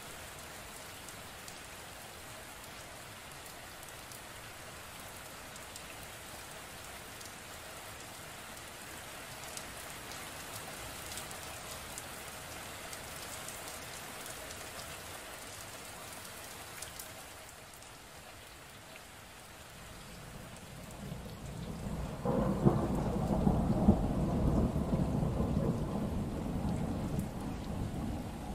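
Steady rain falling. About twenty seconds in, a long rumble of thunder builds and stays loud for several seconds near the end before easing off.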